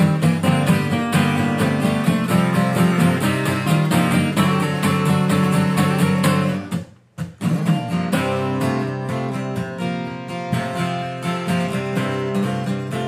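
Country music with a strummed acoustic guitar, an instrumental passage with no singing. The music breaks off for a moment about seven seconds in, then picks back up a little softer.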